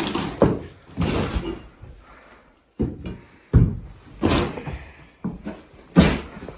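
A pry bar knocking and scraping against the floor as carpet is pried and torn up: about half a dozen irregular knocks with scraping and tearing between them, with a brief pause a little before halfway.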